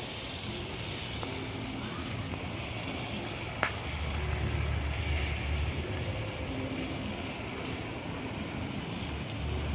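Steady low outdoor rumble that swells about four seconds in, with one sharp click just before it.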